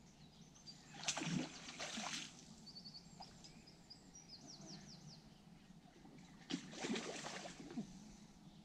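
A hooked tench splashing and thrashing at the surface close to the landing net, in two bursts of splashing a little over a second long each, about five seconds apart. Between them a bird sings a quick run of high chirps.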